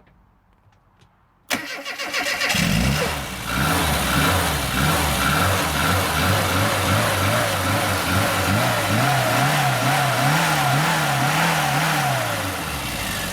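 A car engine starting suddenly about a second and a half in, then running with its revs rising and falling over and over, easing off near the end.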